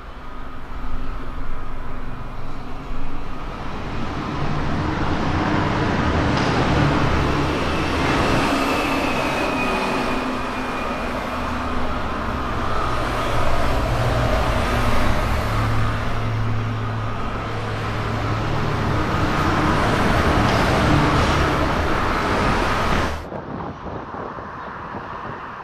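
Steady rumble of motor traffic, with a low engine drone that shifts in steps. It cuts off abruptly near the end, leaving quieter, even, wind-like noise.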